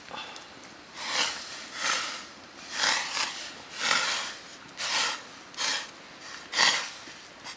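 Water splashing in a steel wok as raw pig ears are dropped and pushed into the boiling water: a series of short splashes, about one a second.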